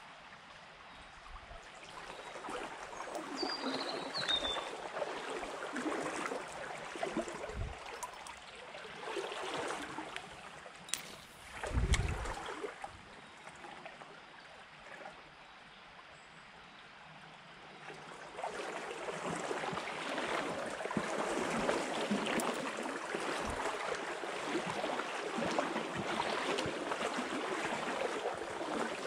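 Shallow stream water sloshing and trickling, swelling in two long stretches as someone wades through it. A dull low thump about twelve seconds in is the loudest moment.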